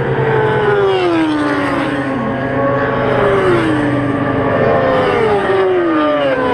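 Racing sportbike engines at speed, their high engine note falling in pitch in several long glides, one after another.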